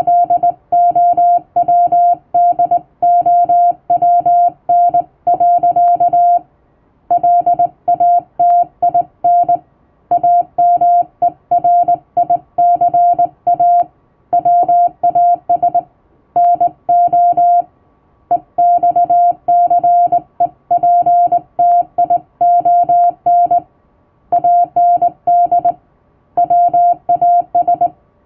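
Hand-sent Morse code from a telegraph key: a single steady tone keyed on and off in dots and dashes, with short pauses every few seconds. It is plain-language English text sent for receiving practice.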